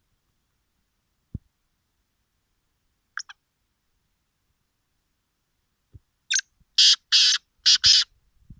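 A tetar (francolin) calling: a short double note about three seconds in, then a run of five loud, harsh notes in quick succession near the end. A few faint low knocks fall in between.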